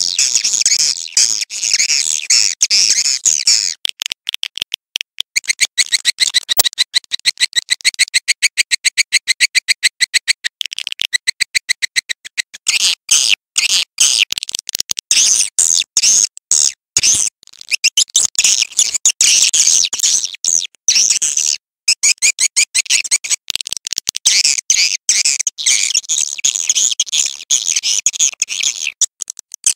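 Swiftlet calls: rapid, high chirping and twittering in dense pulsed runs, with a few short breaks.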